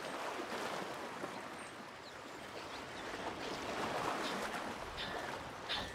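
Steady rushing background noise; near the end an African penguin begins its donkey-like braying call with two short rasping notes.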